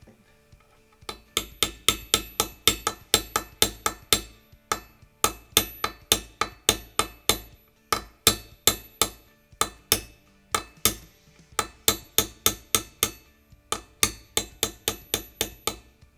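Hammer tapping a brass punch to drift a rear sight sideways into the dovetail of a pistol slide: sharp metal-on-metal taps, about three a second, in runs with short pauses, starting about a second in.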